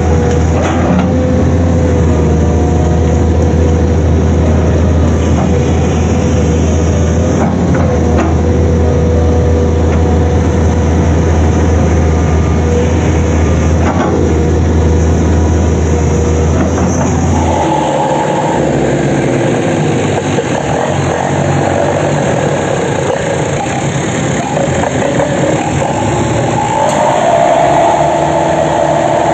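Excavator's diesel engine running steadily with a deep hum and a few sharp knocks. About two-thirds of the way in it gives way abruptly to a tractor's diesel engine running, with a higher, rougher tone.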